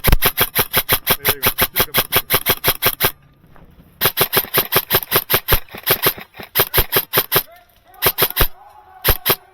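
Airsoft gun firing in fast strings of sharp shots, about eight a second: one run of about three seconds, a second-long pause, a longer run, then two short bursts near the end.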